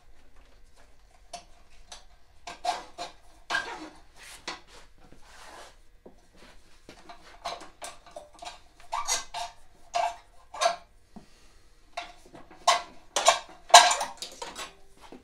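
Metal clicking, scraping and rattling as a stuck throttle cable is worked loose inside the steel front frame of a Snapper mower: irregular knocks in bursts, some with a short metallic ring, the loudest near the end.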